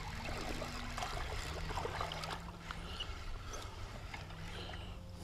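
Faint lapping and sloshing of shallow water around wading anglers, with a few light knocks from handling a spinning rod and reel.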